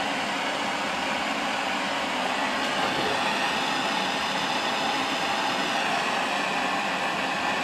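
Heat gun running steadily, a constant rushing hiss of hot air with a faint high whine, heating up for plastic staple welding.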